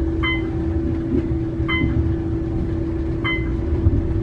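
Elevator car descending with a steady hum and low rumble, and a short high beep each time it passes a floor, three beeps about a second and a half apart.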